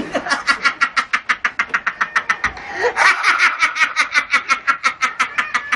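Rapid cackling laughter in fast, evenly spaced short bursts, about eight or nine a second, pausing briefly about two and a half seconds in and then running on.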